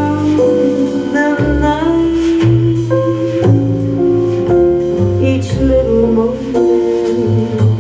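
Jazz ballad music played from a vinyl record on a hi-fi system: slow bass notes under plucked guitar and other instruments, with a sung line carrying through.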